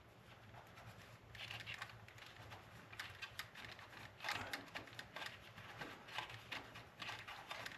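Faint clicks and rustling of small plastic parts being handled: a slot-car track cleaning truck being worked off its plastic display stand. A low steady hum sits underneath.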